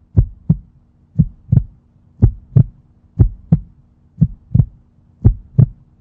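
Heartbeat sound effect: paired low thumps, lub-dub, repeating about once a second over a faint steady hum.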